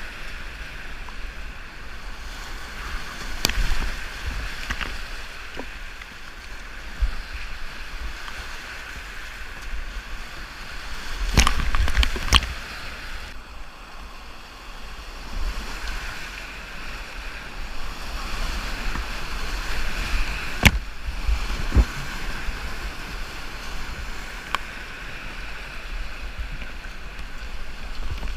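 Whitewater river rushing steadily, with wind noise on the microphone. A few sharp knocks break through, with a cluster of them about halfway.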